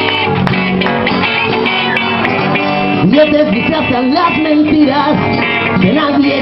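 Live rock band playing, guitars to the fore. A sliding melodic line comes in about three seconds in.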